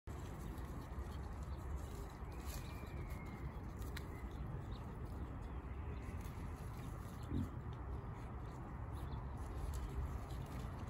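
Outdoor ambience: a steady low rumble, with a faint falling bird call a couple of seconds in and a brief low sound about seven seconds in.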